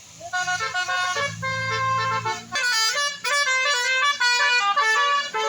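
Bus 'telolet' horn, a set of tuned horns playing a quick melody of stepped notes. From about halfway in, several notes sound together and change faster. A low hum runs under the first half.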